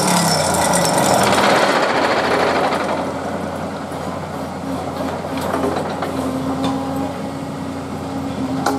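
Excavator-mounted hydraulic pile driver driving a Larssen steel sheet pile into the ground: a dense, rapid rattle of steel on steel. Its pitch drops at the start, and it is loudest for the first three seconds before easing a little.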